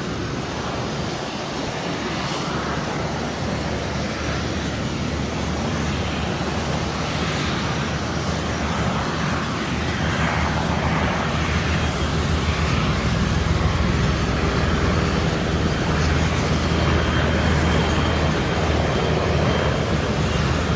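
Aircraft engine noise from an airplane in flight, steady and gradually growing louder as it approaches.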